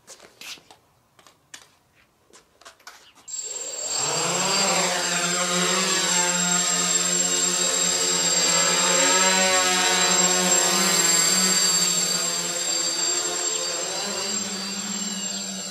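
A few faint taps, then about three seconds in the XP2 quadcopter's electric motors and propellers spin up with a rising whine. They settle into a steady hum for takeoff and hover, the pitch wavering slightly as the throttle changes.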